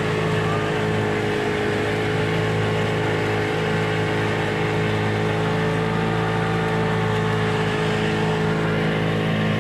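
Small outrigger tourist boat's motor running at a steady, even pitch, heard from on board as the boat cruises along.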